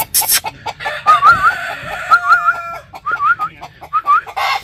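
Chickens calling: short clucks at first, then a run of high wavering calls in four quick groups, and a brief rough noise near the end.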